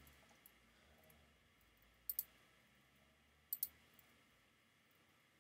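Computer mouse clicking: two quick double clicks about a second and a half apart, over near-silent room tone.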